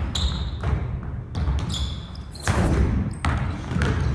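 A basketball bouncing on a gym floor as a player dribbles and drives in a one-on-one, with a few sharp bounces at uneven intervals. Short high sneaker squeaks and footfalls on the floor come with the cuts.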